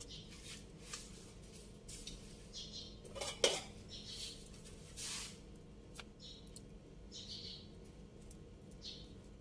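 A utensil scraping and clinking against metal cookware while working thick cake batter, in scattered short strokes, with one sharper clink about three and a half seconds in.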